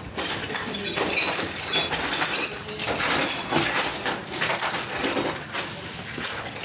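Packaging being handled: cardboard box flaps, foam packing and plastic wrap rustling, crinkling and scraping under the hands, with many small knocks.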